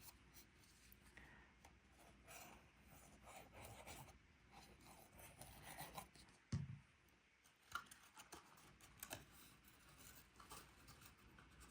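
Faint rustling and light taps of cardstock pieces being handled and pressed together, with a soft thump about halfway through.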